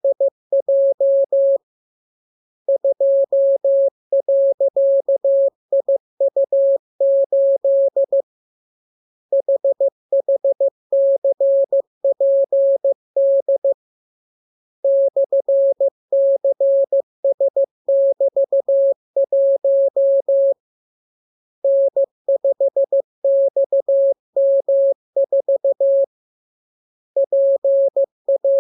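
Morse code practice signal: a single mid-pitched beep tone keyed in dots and dashes, sending a radiogram of letters, numbers and signs. The beeps come in runs of about four to six seconds with pauses of about a second between them.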